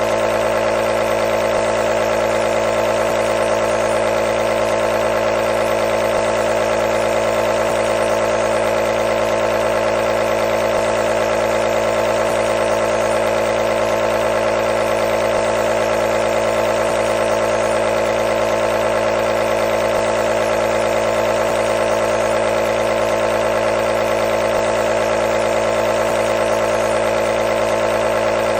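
Nebulizer's compressor motor running continuously with a steady, unchanging hum.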